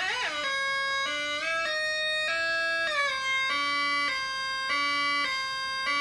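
Two-tone siren from a two-555-timer breadboard circuit driving a small loudspeaker. A buzzy electronic tone switches back and forth between a higher and a lower pitch about every half second, with a brief pitch swoop at the start as the potentiometer is turned.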